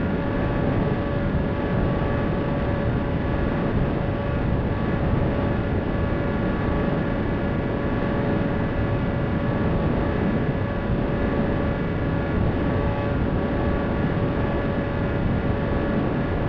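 Onboard sound of a Bixler foam RC plane in flight: the electric motor and propeller whine at a steady pitch under the rush of air past the camera microphone.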